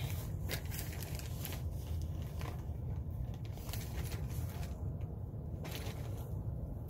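Crinkles and crackles of a plastic poly mailer bag being handled and turned over, a few sharp crackles at a time, over a steady low rumble.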